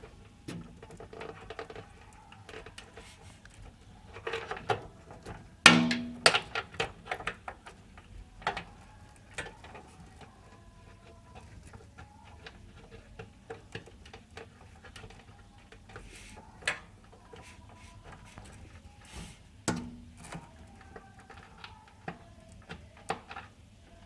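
Scattered clicks and knocks of power-supply cables and plastic connectors being handled and plugged in inside a steel PC case, with a sharp knock about six seconds in.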